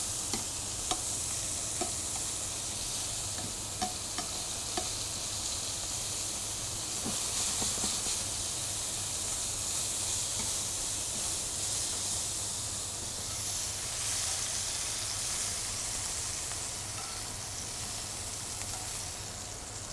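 Strips of beef sirloin sizzling steadily in a hot frying pan as they are seared quickly, with a few light clicks as the pieces are turned with metal tongs.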